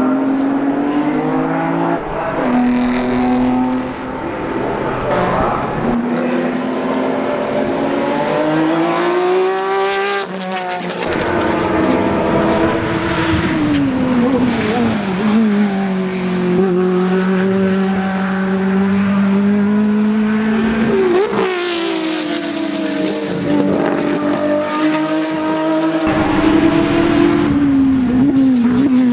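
Historic touring and sports racing cars at racing speed on a circuit. The engine notes climb through the gears and drop sharply in pitch as cars go by close, about ten and again about twenty-one seconds in.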